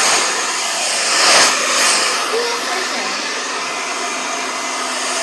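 Hand-held hair dryer running steadily, a wide airy hiss over a faint motor hum, swelling louder about a second and a half in.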